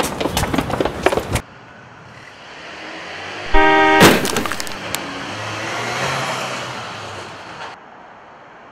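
Music stops about a second and a half in. A vehicle approaches, its horn honks briefly, and a loud sharp impact follows, as the pickup strikes a man crossing in front of it. The vehicle's engine and tyre noise carry on until it cuts off near the end.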